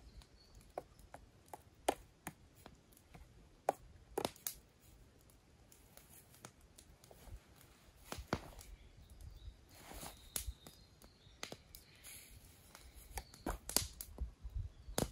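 Scattered light clicks, taps and rustling of hands handling camp cooking gear and food packaging.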